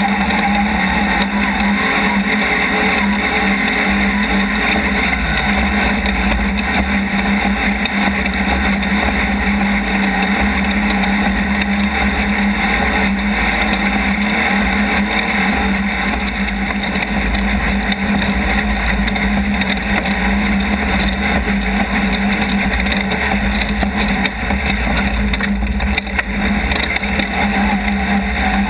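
Off-road race vehicle's engine running steadily, a constant unbroken drone with a haze of noise over it.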